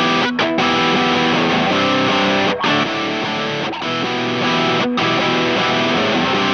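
Electric guitar on its middle pickup playing distorted chords through a Space Sounds Spacecraft Rat-style distortion pedal. Each chord is held for a second or two, with short stops between.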